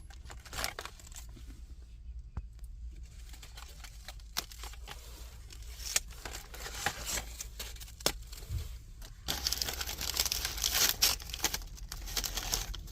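Plastic snack packet being handled and crinkled, with scattered crackles at first, then dense, louder crinkling from about nine seconds in.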